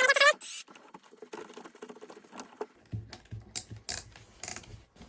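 Light clicks and rattles of metal parts being handled as the chuck fitting is threaded into a wire stripping machine, with a short pitched sound at the very start and low knocks in the second half.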